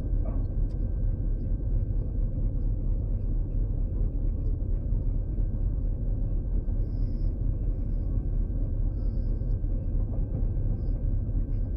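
LAZ-699R bus's ZIL-375 V8 petrol engine running at a steady, even speed: a continuous deep rumble with no revving.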